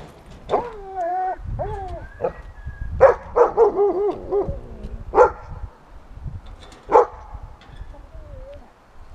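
Dog whining in wavering, bending pitches, breaking into a few sharp barks about three, five and seven seconds in, picked up close by a camera on the dog's own head.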